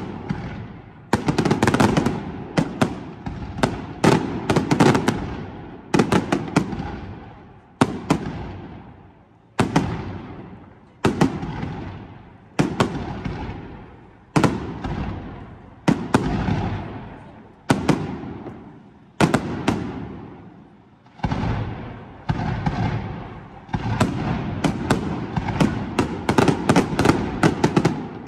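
Aerial fireworks shells bursting overhead: sharp bangs, each trailing off in a long rumble, with bursts of crackling. The bangs come close together at the start, then singly about every one and a half to two seconds, then crowd together again near the end.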